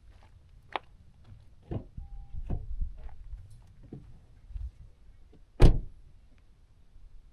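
Car door handling: a click, a run of dull thumps with a short beep among them, then one loud door slam about five and a half seconds in.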